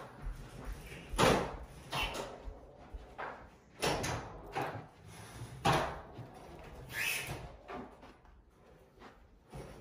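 A string of sharp knocks and clacks, the loudest about a second in, the rest coming every second or so.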